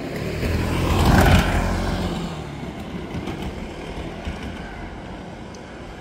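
A motor vehicle passing close by, growing louder to a peak a little over a second in and then fading away over the next few seconds.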